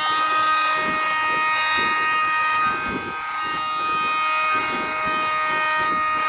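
Handheld electric power tool such as a grinder or sander running at a steady high whine, dipping slightly about three seconds in, with the rhythmic scrape of a stiff hand brush scrubbing dust off the steel hull underneath.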